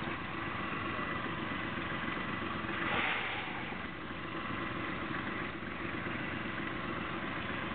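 Boat engine idling steadily, with a brief rush of noise about three seconds in.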